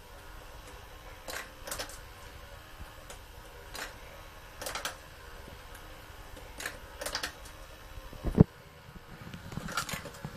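Motorised plastic marble run in operation: balls click and clatter along the spiral tracks in short irregular clusters over a faint steady motor hum, with one louder low thump about eight seconds in.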